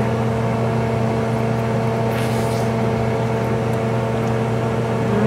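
Steady machine hum with a low drone and evenly spaced overtones, from a running kitchen appliance motor or fan, with a brief soft rustle about two seconds in.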